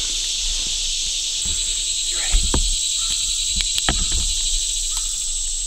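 Steady high-pitched chorus of insects, with scattered footsteps crunching through leaf litter and undergrowth.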